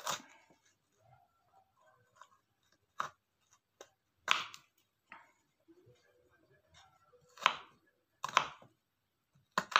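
Knife slicing kencur (aromatic ginger) rhizome: a handful of separate sharp chopping strokes, irregularly spaced, with a gap of a few seconds in the middle.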